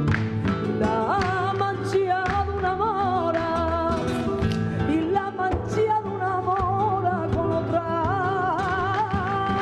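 Flamenco music: a singer's wavering, ornamented melody comes in about a second in over guitar, with frequent sharp percussive accents.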